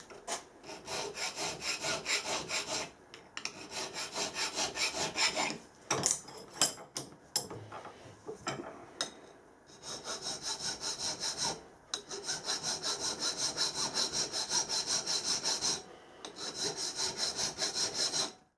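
Hand file stroking back and forth over a freshly silver-soldered brass boss, cleaning up the joint: quick, even rasping strokes in five runs of a few seconds each, with a few sharp clicks in a pause about six seconds in.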